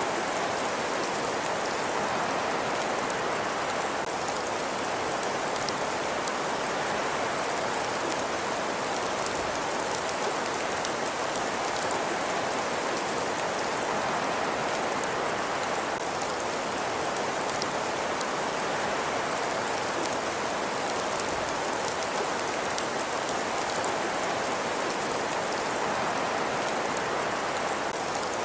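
Fireplace ambience: a steady, even hiss with fine crackles throughout.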